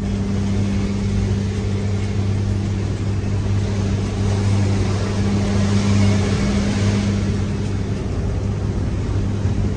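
Truck's diesel engine running steadily under way, heard from inside the cab as a low, even drone with road noise.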